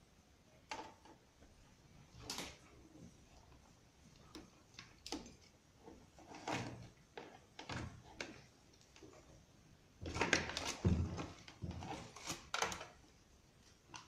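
Hands handling and twisting electrical wires against the plastic panel of a washing machine: scattered light clicks, knocks and rustles, busiest about ten to thirteen seconds in.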